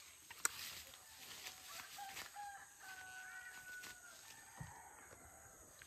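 A rooster crows once, faintly, about two seconds in: a few short stepped notes and then a long held note lasting around two seconds. A single sharp click comes just before, about half a second in.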